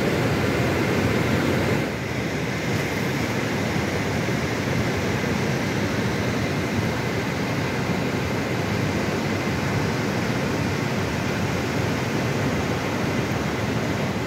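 Flash-flooded Teesta river rushing: a steady, loud, deep rush of muddy floodwater and debris, with a brief dip in level about two seconds in.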